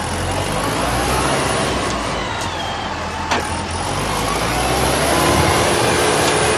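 Self-loading concrete mixer's diesel engine running steadily under work, with a faint whine that rises and falls in pitch and a single sharp knock about three seconds in.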